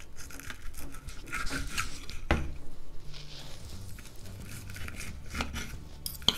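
Table knife sawing through a slice of baked apple strudel while a fork holds it on a plate, with a few sharp clicks of metal on the plate, one about two seconds in and another near the end.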